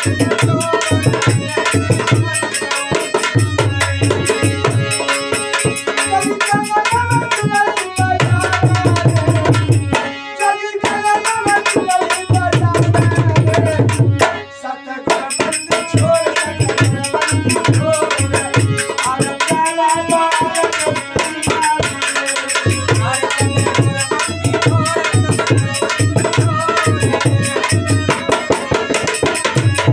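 Live Indian folk music: a dholak drummed in a fast, driving rhythm over a harmonium, with small hand cymbals and a man singing. The drumming stops briefly twice near the middle, then picks up again.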